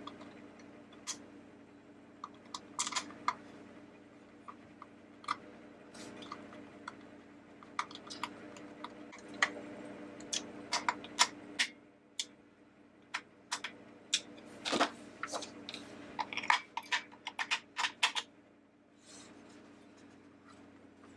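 Scattered light clicks and taps of hands working a small screwdriver and handling the decoration's plastic base and battery compartment, busiest in the second half, over a faint steady hum.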